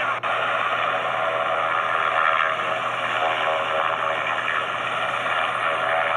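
Military helicopters of the Black Hawk type running close by during a landing: a steady, loud wash of rotor and turbine noise, with a brief break just after the start.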